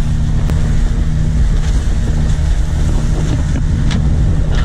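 A boat's motor running steadily, a continuous low hum.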